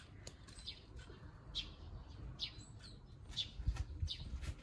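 Small birds chirping: short, high, falling chirps repeated about once a second, over a low rumble.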